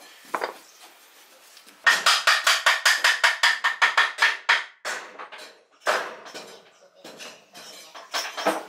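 Background music with a fast, evenly spaced tapping percussive beat, starting about two seconds in, breaking off briefly in the middle and coming back near the end.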